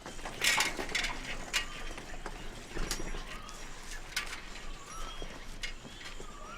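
Scattered sharp clicks and knocks, irregularly spaced. From about four seconds in, birds chirp in short repeated calls.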